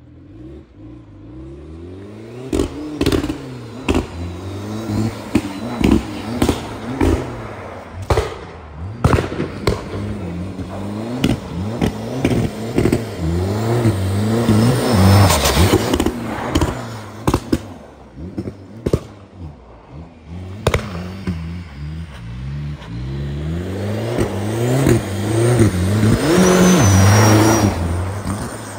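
TDI turbodiesel car revving up and down again and again, with sharp exhaust pops and bangs cracking between the revs. It gets loudest near the end as it accelerates past close by.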